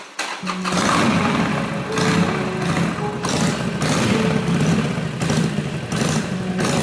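Motorcycle engine running, coming in about half a second in and then holding a fairly steady, pulsing note.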